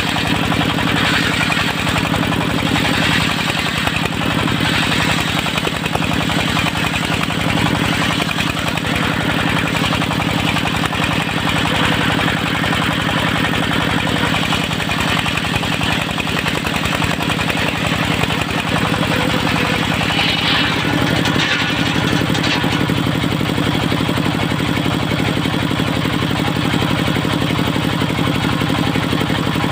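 Engine of a portable circular sawmill running steadily at an even speed, with a constant hiss from the saw over it.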